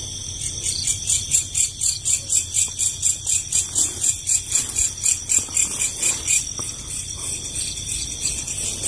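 Night insects: one chirps in a steady high-pitched rhythm about three times a second, fading out near the end, over a steady high drone from others.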